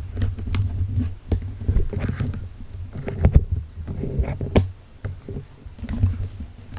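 Handling noise from a handheld camera carried on foot: uneven low rumbles on the microphone, with soft footsteps and small clicks and knocks throughout.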